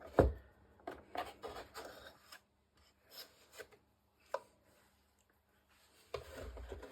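A run of short scraping and rubbing strokes as excess glue is cleared from a join in a model boat hull, followed by a few light taps. There is a quiet pause before the rubbing starts again near the end.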